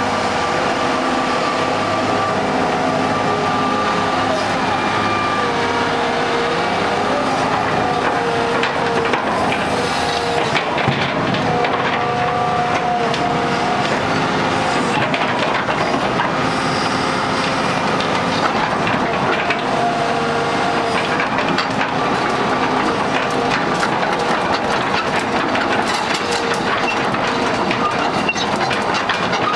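Kubota KX200-2 hydraulic excavator running and working: diesel engine and hydraulic whine that shift in pitch now and then, with scattered metallic clanks.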